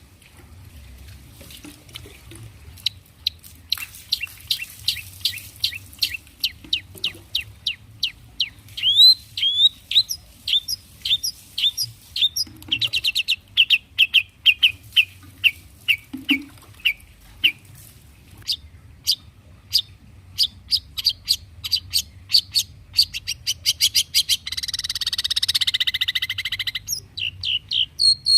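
Long-tailed shrike singing: long runs of quick, sharp, high chirps repeated several times a second, some sliding down in pitch, as mimicked calls strung together. Near the end comes a harsh, raspy chatter lasting about two seconds.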